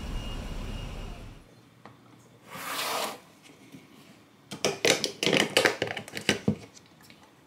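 Street traffic noise that cuts off after about a second, then a brief rustling swish, then a run of sharp crackling clicks as the snap-on plastic lid is pried off a tub of Greek yogurt.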